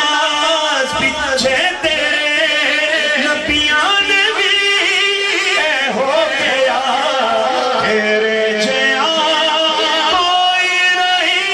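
A man singing a naat into a microphone, holding long, wavering melismatic notes without a break, amplified through a loudspeaker system.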